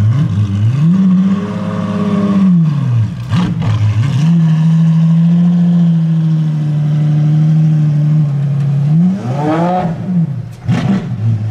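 Apollo IE hypercar's naturally aspirated V12 being revved while standing. It rises from idle and falls back, gives two sharp cracks, holds a steady rev for about four seconds, then blips up sharply near the end and drops back toward idle.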